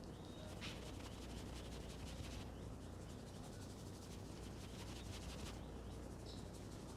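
Fingers rubbing and scratching through hair and scalp during a head massage, a fine rapid crackle that breaks off briefly twice.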